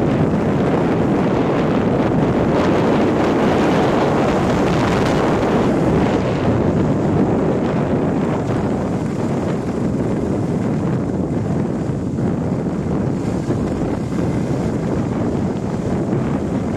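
Steady rush of wind buffeting the microphone of a skier moving downhill, mixed with the hiss of skis sliding over groomed snow.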